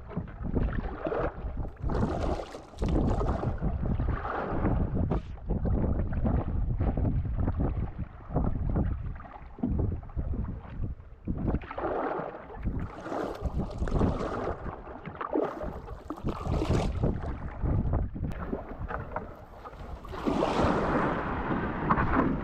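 Wind buffeting the microphone with a heavy, gusty rumble, over the swish and splash of canoe paddle strokes in the water.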